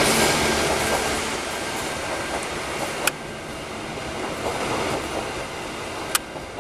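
Diesel locomotive-hauled passenger train running over the rails, its rumble fading as it pulls away. Two sharp clicks come about three seconds apart.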